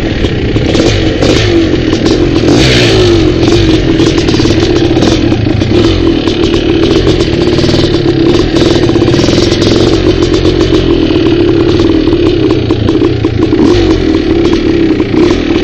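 Dirt bike engine running loud and steady under throttle, with small rises and falls in pitch, heard from the rider's helmet camera while riding a rough trail.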